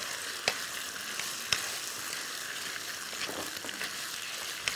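Sausages, onion and bell peppers sizzling in sauce in a frying pan over high heat while being stirred with a wooden and a silicone spatula. The spatulas tap against the pan a few times.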